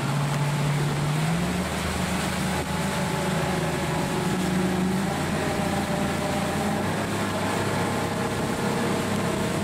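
200-horsepower Mercury Pro XS outboard motor running at speed on a tritoon boat, over a steady rush of wake water and wind. The engine's pitch rises about a second in and then holds steady.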